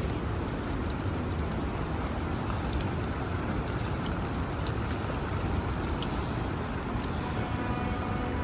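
Steady noise of heavy rain and running water, with a low rumble underneath and scattered drop-like ticks.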